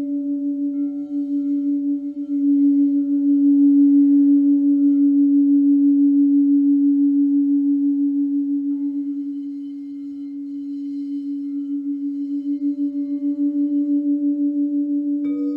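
Crystal singing bowl ringing with one steady low hum that pulses and swells, eases, then grows again. Near the end another bowl is struck, adding higher tones.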